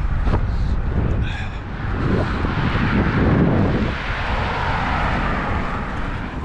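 Wind rumbling on the microphone, with a rushing noise that swells about two seconds in and fades near the end.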